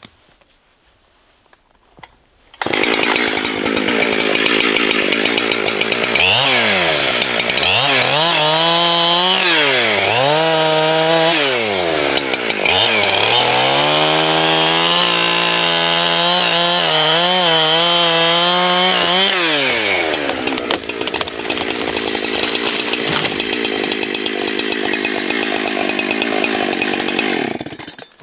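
Two-stroke chainsaw cutting into a leaning tree to fell it. It comes in about two and a half seconds in, revs up and down several times, is held at high revs through the cut, then runs on steadier before stopping near the end.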